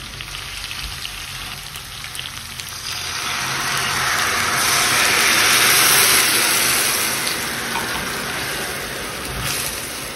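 Red wine poured into a hot sauté pan of frying chicken and vegetables, the pan sizzling and crackling. The sizzle swells loudly about three seconds in as the wine hits the pan, peaks around the middle, then eases to a gentler simmering sizzle.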